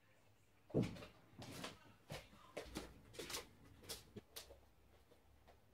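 A thump about a second in, then a run of sharp knocks about two a second for some three seconds: the camera being set down, then footsteps on a hard floor in a small room.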